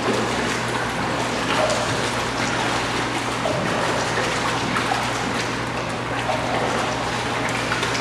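Water trickling and splashing in a canine hydrotherapy pool as a puppy paddles, over a steady low hum.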